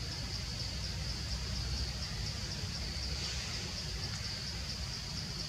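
Forest insects calling in a steady, high-pitched chorus that pulses about four times a second, over a low rumble.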